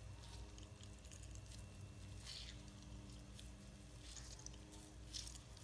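Faint wet squelches of milk-soaked sandwich bread being squeezed out by hand, a few short ones over a low steady hum.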